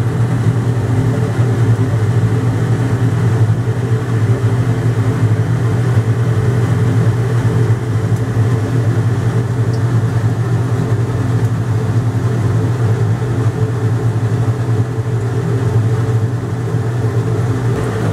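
Steady low mechanical hum of a ventilation fan running, unchanging throughout.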